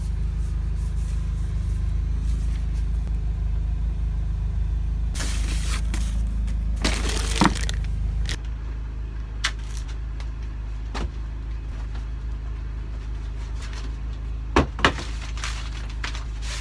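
Carbon fiber paddle shafts and their packaging being handled: brief rustling and a few light clicks and knocks, with a double knock near the end, over a steady low hum that drops in level about eight seconds in.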